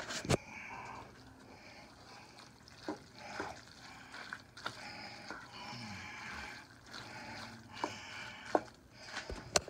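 Spaghetti in sauce sizzling in a frying pan while a wooden spatula stirs and turns it, with a few short knocks of the spatula against the pan.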